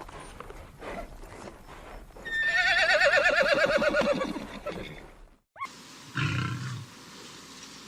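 A horse whinnying: one long shaky call, about two seconds, falling in pitch as it goes. After a brief gap, a short low animal sound follows near the end.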